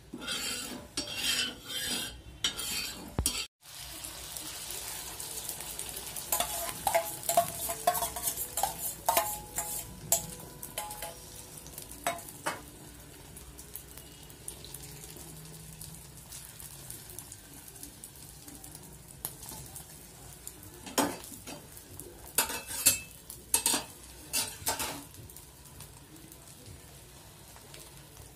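Egg omelette sizzling in oil on a hot tawa, with a steel spoon scraping and clicking against the griddle as the egg is worked; at the start a spatula scrapes across the oiled tawa. A run of louder scrapes and taps comes about two-thirds of the way through.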